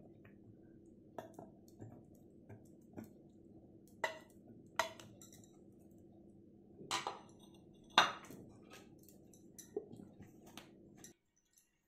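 Silicone spatula scraping banana pieces off a plate into a steel mixer-grinder jar: a series of light knocks and clinks over a steady low hum, the loudest knock about eight seconds in as the plastic lid is fitted onto the jar. The sound cuts off abruptly just before the end.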